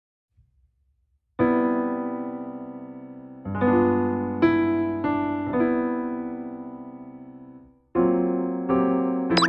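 Background music: gentle electric piano chords, struck one after another and left to ring out, starting about a second and a half in after silence. Near the end there is a quick high pitch glide.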